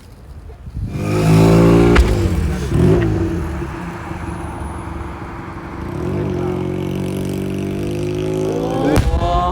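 A vehicle engine running steadily, with its pitch rising near the end, while two firework shell bursts go off with sharp booms, about two seconds in and again near the end.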